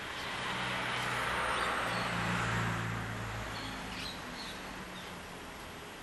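Background noise with a low hum that swells for a couple of seconds and then fades, with a few faint high chirps over it.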